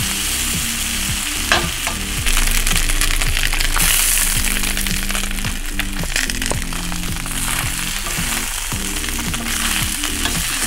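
Cornstarch-coated flank steak strips frying in hot oil in a stainless-steel skillet: a loud, steady sizzle, with scattered clicks of a utensil against the pan.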